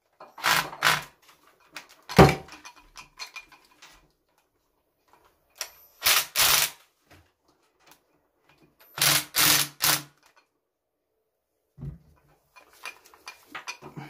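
Cordless drill-driver spinning in short bursts, three runs of two or three pulses each, driving at the screws of a plastic power-tool housing, with one sharp knock about two seconds in.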